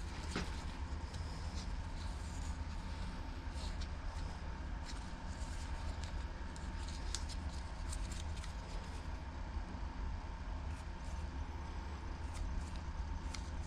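Small clicks and taps of a string-trimmer carburetor being handled and opened up by hand, over a steady low background rumble.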